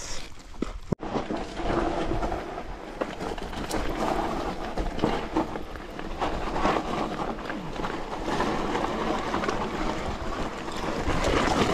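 Focus JAM² electric mountain bike rolling down loose scree: tyres crunching over shale and stones, with many small knocks and rattles from the bike, and wind on the microphone. The sound cuts out briefly about a second in.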